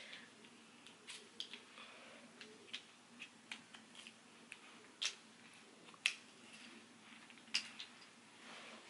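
Plastic perm rods being unclipped and pulled from hair: about a dozen irregular, sharp little clicks and snaps as the rod clasps are opened, the loudest around five and six seconds in and again near the end.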